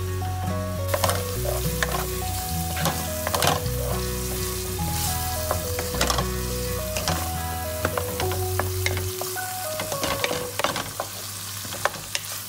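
Canned tuna in its own oil, with onion, tomato and spices, sizzling as it fries in a frying pan, while a wooden spoon stirs and scrapes it with frequent clicks. This is the stage of frying it until the oil cooks off. Background music plays under it, and its bass drops out about nine seconds in.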